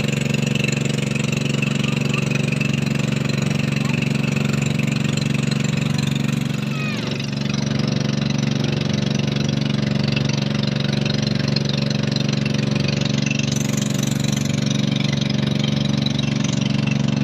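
Boat engine running steadily, easing off for a moment about seven seconds in, then picking up again.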